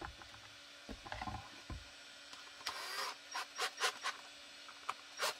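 Kydex holster parts and their belt-loop screw hardware being handled and fastened: light clicks and short scraping rubs, with a quick run of ticks about three and a half seconds in.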